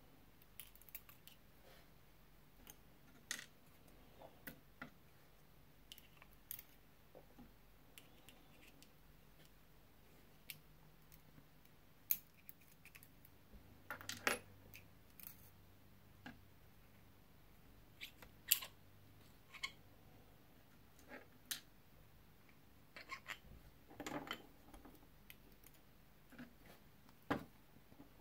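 Scattered small metallic clicks and clinks, some louder than others, from a brass Mul-T-Lock Junior lock cylinder being worked with steel tweezers and its parts set down on a wooden pin tray.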